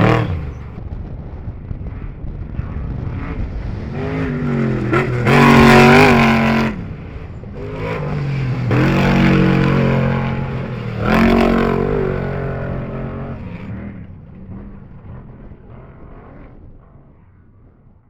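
Off-road race vehicles running past with engines revving and climbing in pitch, two loud passes in the middle, then the engine sound fading away over the last few seconds.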